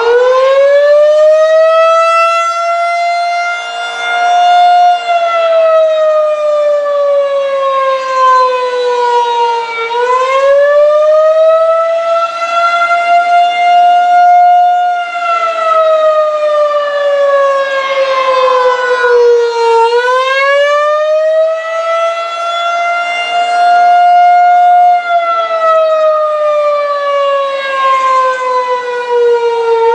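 Federal Signal 2001-SRN rotating outdoor warning siren sounding the Attack signal: a loud wavering wail whose pitch slowly climbs and sinks in cycles of about ten seconds, its loudness swelling and dipping as it goes.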